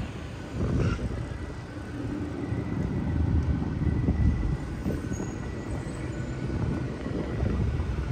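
City street traffic: vehicles passing with a steady low rumble that swells and eases, with a faint thin high tone held for a few seconds in the middle.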